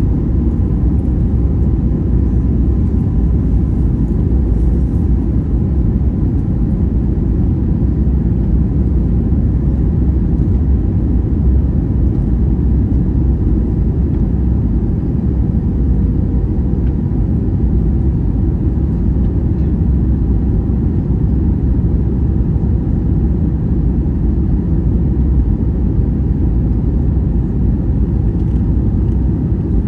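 Cabin noise inside an Airbus A321neo on approach: the steady low rumble of its Pratt & Whitney geared turbofan engines and rushing airflow, with a faint steady hum above it.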